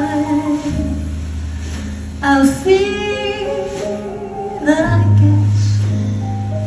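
A woman singing long held notes with vibrato over instrumental accompaniment, with a steady bass line underneath.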